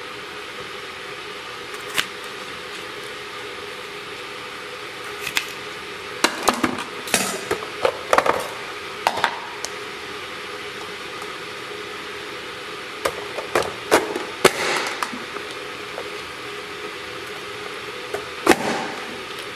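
Plastic push-down vegetable chopper dicing green bell pepper: sharp plastic clacks as the hinged lid is pressed down through the blade grid, in bunches of several strokes with pauses between. A steady hiss runs underneath.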